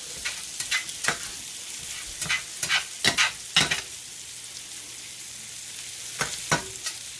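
Thin-shaved beef steak sizzling in a hot pan, with a utensil scraping and chopping through it in short strokes that come in several quick clusters.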